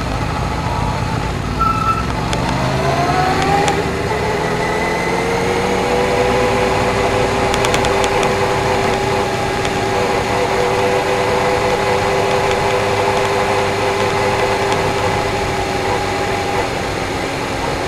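Suzuki GSX-R1000 K1's inline-four engine heard from a camera on its fairing while the bike rolls at low speed. The engine pitch rises about two to four seconds in, then holds steady.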